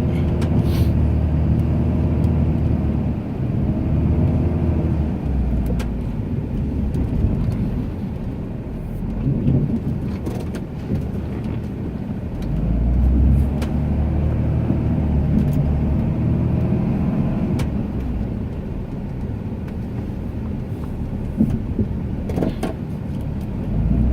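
Ram 2500 pickup's engine running under load while plowing snow, its pitch rising and falling several times as the truck revs and eases off, heard from inside the cab, with a few short knocks.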